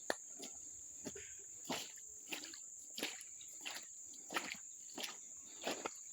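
Footsteps walking at a steady pace, about three steps every two seconds, over a steady high-pitched drone of insects.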